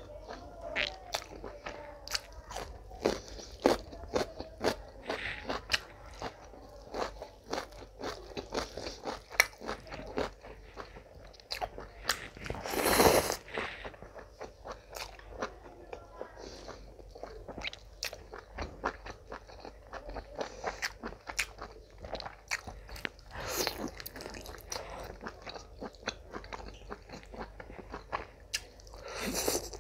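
Close-miked chewing and biting of mutton and spiced rice eaten by hand, a dense run of short wet mouth clicks, with a louder, longer noisy burst about 13 seconds in and shorter ones later.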